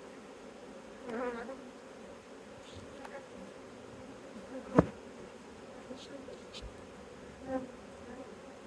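Honeybees humming steadily around an open hive, with a bee buzzing close past about a second in and again near the end. A single sharp knock just before the middle is the loudest sound.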